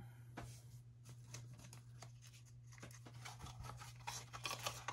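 Faint clicks and scrapes of a small cardboard box being handled and its end flap opened, getting busier after about three seconds, over a faint steady low hum.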